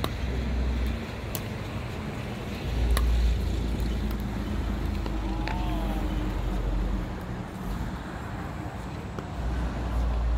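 Pickleball paddles striking the hard plastic ball: a few sharp pops a second or two apart, over a low rumble that swells and fades.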